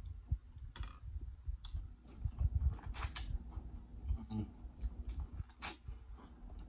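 A person chewing seafood boil food, with irregular wet mouth clicks and smacks. Near the end comes a sharper click as he bites into an ear of corn on the cob.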